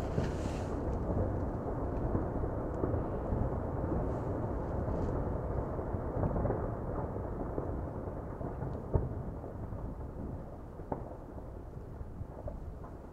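Sakurajima volcano erupting: a steady low rumble from the ash explosion that slowly fades, with one sharp crack about nine seconds in.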